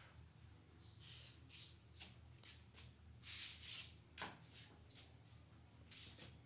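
Hands rubbing and scratching through hair and scalp during a head massage: a string of short, soft rustles, with a sharper click about four seconds in. A faint falling bird chirp comes near the start and again near the end, over a low steady hum.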